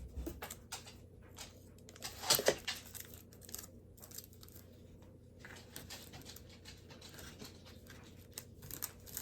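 Quiet handling of craft materials: light rustling and small clicks, with a short, louder tearing sound a little over two seconds in.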